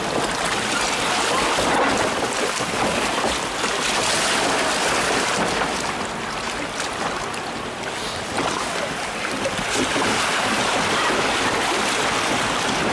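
Water rushing and splashing along a log flume trough while the log boat floats through it, a steady churning hiss.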